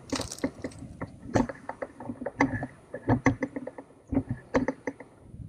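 A run of irregular clicks and soft knocks: handling noise on a hand-held camera's microphone.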